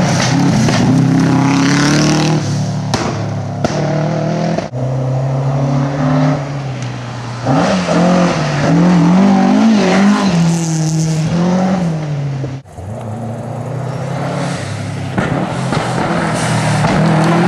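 Rally cars, Subaru Imprezas among them, driven hard past on a gravel stage, engines revving up and down through the gears. The engine note breaks off abruptly twice, about 5 and 13 seconds in, as one car's run gives way to the next.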